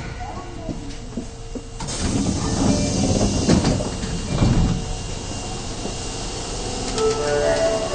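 Subway car doors sliding open at a station stop, with a hiss and rumble of the door mechanism lasting about three seconds. Near the end a melodic chime of stepped tones begins.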